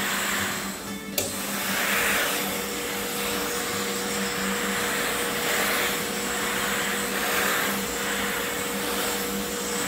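Dry vapor steam cleaner at full pressure jetting steam through a microfiber steam-mop head: a steady hiss that swells and eases every couple of seconds, over a steady low hum. A sharp click about a second in.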